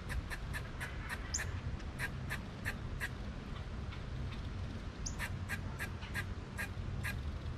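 Short, sharp animal calls repeated about three times a second in two bouts, with a brief high, falling chirp between them, over a steady low rumble.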